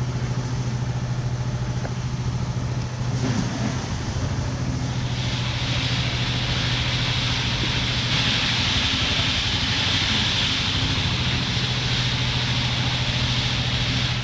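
An engine idling steadily, a constant low hum, with a hiss that grows louder about five seconds in.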